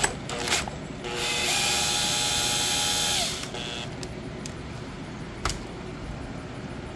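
Power drill-driver spinning for about two seconds to back out a screw holding the ignition coil, its whine dropping in pitch as it winds down. A few sharp clicks before it and one sharp knock later on.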